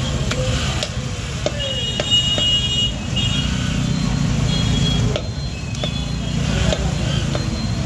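Butcher's cleaver chopping goat meat on a wooden block: a few sharp strikes at irregular spacing, over a steady low rumble.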